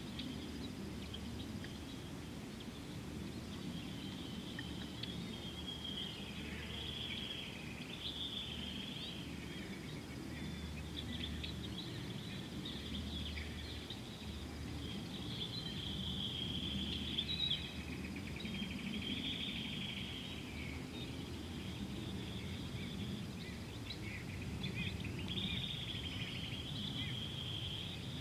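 Outdoor wildlife ambience: repeated high chirps and calls over a steady low rumble, busiest around the middle and again near the end.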